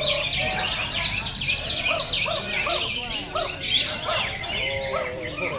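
Cucak ijo (green leafbird) singing a dense, fast and varied stream of chirps and whistles without a break.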